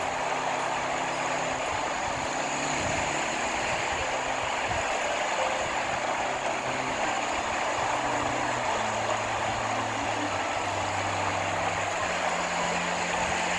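A low engine hum running steadily under a constant rushing noise; the hum's pitch shifts a few times.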